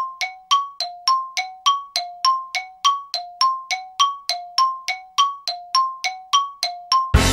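Bell-like two-note chime, a lower and a higher ringing tone taking turns about three and a half times a second in a steady, even pattern. It cuts off abruptly near the end as music comes in.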